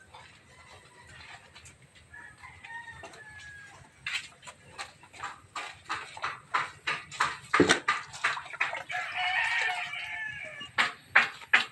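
Chickens calling: a run of short, sharp clucks about three a second that builds over several seconds, then a longer, drawn-out call, and two more clucks near the end.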